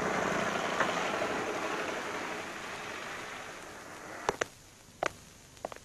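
Car engine and road noise, steady at first and fading away over about four seconds, followed by a few short sharp clicks and knocks.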